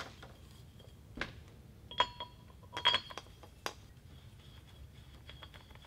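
Metal clinks and taps as an air bottle is handled and fitted to an FX Impact PCP air rifle. Several sharp knocks fall over the first four seconds, two of them ringing briefly, and lighter ticks follow as the bottle is threaded on.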